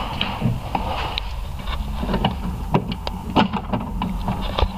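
Irregular small metal clicks, taps and scrapes of a long hex-bit extension and bolts knocking against a metal filler bracket while the bolts are being fitted. A steady low hum runs underneath.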